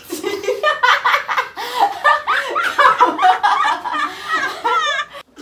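Hearty laughter from a woman and a man, loud and rapid, cutting off suddenly near the end.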